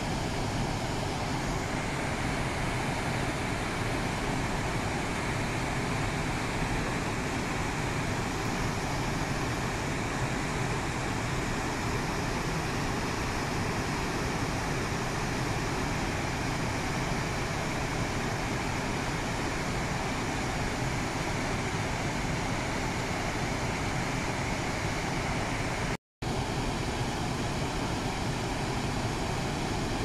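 River Clyde waterfall in spate after heavy rain, a steady, even rush of heavy white water. The sound cuts out for an instant near the end.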